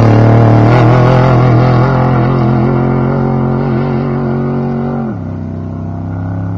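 A desert-racing trophy truck's engine running hard and holding a steady, slightly wavering note. It drops in pitch about five seconds in and fades steadily as the truck pulls away.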